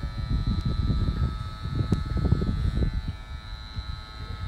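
Electric hair clippers buzzing steadily as they shave a head, with an uneven low rumble under the buzz.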